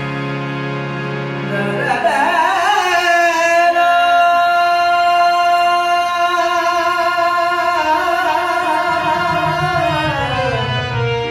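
A song performed live: a steady held instrumental chord for about the first two seconds, then a male singer's voice comes in with a wavering ornament and holds one long high note, gliding down near the end.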